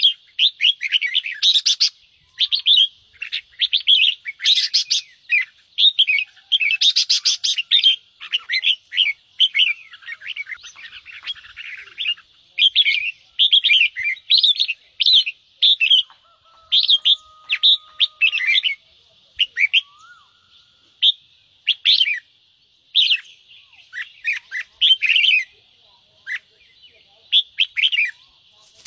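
Red-whiskered bulbul giving its 'ché' scolding chatter: runs of short, quick notes in bursts with brief gaps. These are agitated calls of the kind played to rouse other bulbuls to sing and fight.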